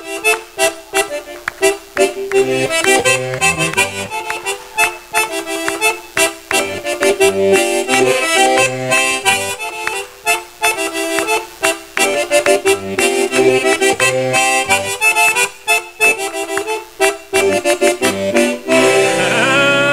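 Accordion (gaita) playing a fast chula dance tune, with handclaps keeping time throughout.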